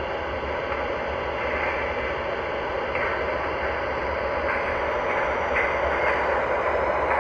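MTH O-gauge R12 subway train set with its onboard train sounds on: a steady train-like rumble and hum with a few faint clicks, growing slightly louder.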